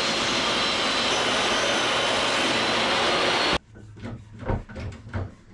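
Table saw running and ripping a wooden board, a loud steady cutting noise that cuts off abruptly about three and a half seconds in. A few light knocks and handling sounds follow.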